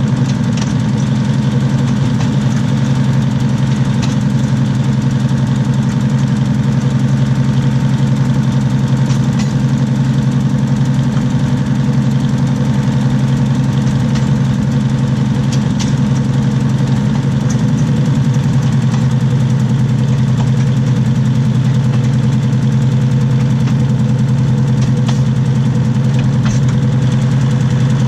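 Diesel railcar running along the track, heard from beneath the carriage beside the wheels: a loud, steady engine drone with occasional faint ticks from the wheels on the rails.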